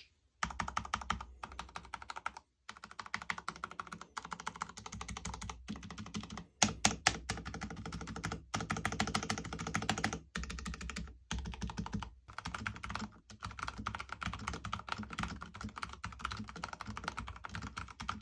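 Fast, continuous typing on a Vissles V84 mechanical keyboard with Vissles VS2 linear switches: a dense run of keystrokes broken by a few brief pauses. The keystrokes are very muted and not thocky.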